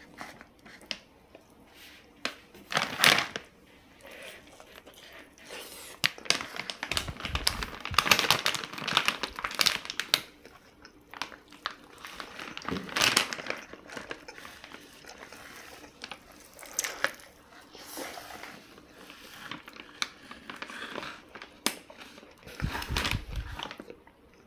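Plastic bag crinkling and rustling in irregular bursts with sharp clicks as a whole rotisserie chicken is handled and torn apart on it, with the wet tearing of the meat. A couple of low thuds, about a third of the way in and near the end.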